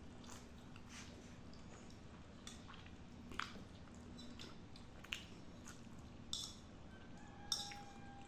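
Close mouth sounds of eating spicy instant noodles: slurping strands off a fork and chewing, with a few short wet clicks. A faint steady tone comes in near the end.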